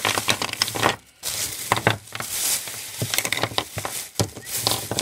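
Thin plastic shopping bag crinkling and rustling as it is shaken out, with small makeup containers clicking and clattering onto a wooden table as they tip out. There is a short pause about a second in.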